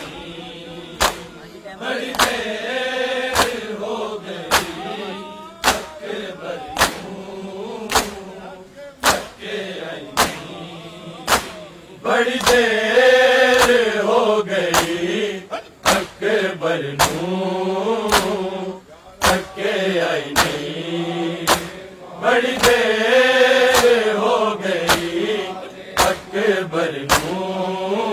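Matam: bare-chested mourners slapping their chests in unison, sharp strikes at a steady pace of about one a second. Over them a voice chants a mournful lament (noha) in long melodic phrases.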